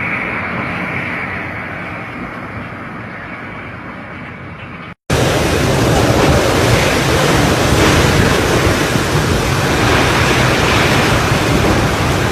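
Typhoon wind and driving rain, heard as a steady hiss of noise with wind buffeting the microphone. It fades through the first few seconds, cuts out for a moment about five seconds in, then comes back much louder and stays steady.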